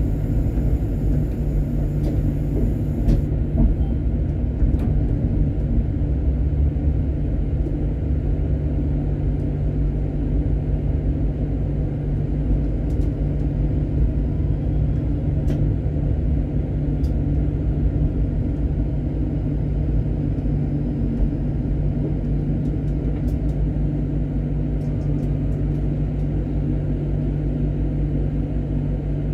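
Tram running on its rails, heard from the driver's cab: a steady low rumble with a constant hum and a few sharp clicks. It grows slightly quieter in the last third as the tram comes to a stand at a stop, with the hum going on.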